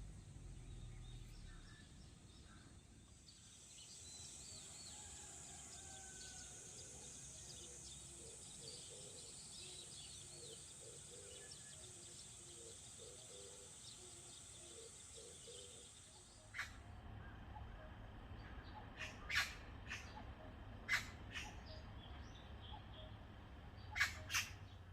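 Birds chirping and calling outdoors over a faint steady hiss. Partway through, the background changes to a low hum, and several short, sharp, loud sounds follow near the end.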